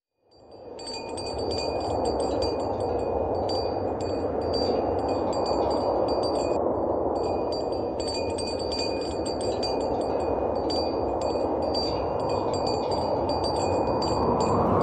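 Small metal chimes tinkling in irregular clusters over a steady rush of desert wind, fading in at the start, with a short break in the tinkling about halfway through.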